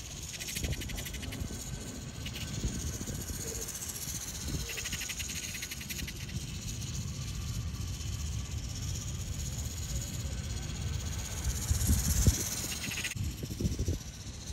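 Faint high whir and hiss of a 1/5-scale Thunder Tiger electric RC motorcycle running on asphalt, with a few short bursts of fast buzzing. Wind rumbles on the microphone throughout.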